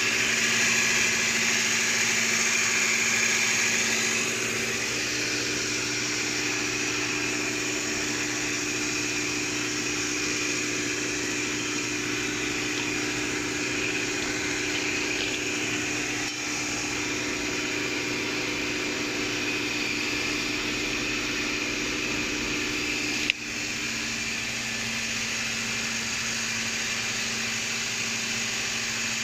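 Napkin tissue paper making machine running steadily: a continuous mechanical drone with several steady whining tones over it. A single sharp click comes about three-quarters of the way through.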